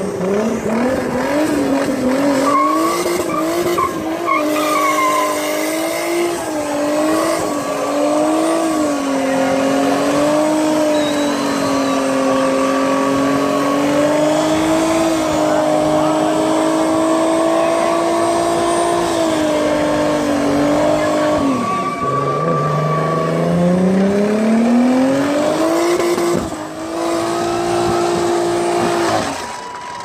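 VW Golf Mk3 engine held at high revs in a burnout, with its tyres spinning and squealing. Just past twenty seconds the revs fall sharply, then climb back up over a few seconds and hold high again before dropping off near the end.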